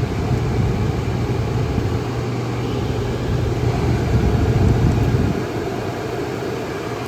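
1959 Welbilt Wall-Slim 2-horsepower heat pump running out of its case in heat mode: a steady compressor hum with fan and air noise, easing off slightly about five seconds in.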